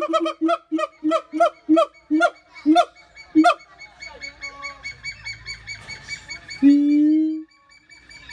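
Siamang calling: a quick series of about ten short hoots, each about a third of a second apart, then a lull, then one long, slightly rising call near the end.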